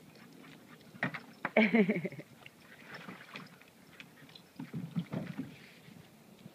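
Water sloshing and splashing in a plastic kiddie pool as a small dog wades through it and climbs out over the rim, with a few knocks about one second and five seconds in.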